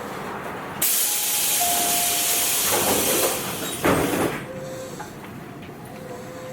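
Sudden loud hiss of compressed air venting from a Tobu 8000 series electric train's pneumatic equipment, lasting about three and a half seconds and ending in a short, sharper puff. Under it and after it the car hums steadily.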